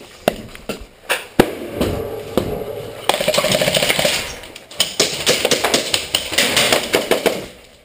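Airsoft guns firing: a few single shots, then rapid full-auto bursts from about three seconds in, fading out near the end.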